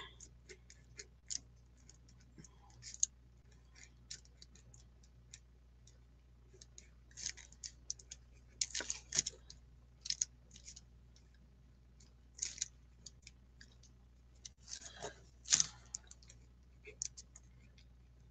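Faint, scattered scratching strokes and light clicks of a drawing tool working on sketchbook paper, with a few louder strokes about nine and fifteen seconds in.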